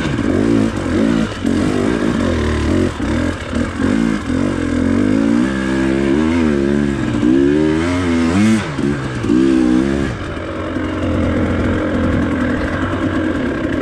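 Enduro dirt bike engine revving up and down in repeated bursts as it climbs a steep trail, then running steadier and lower after about ten seconds.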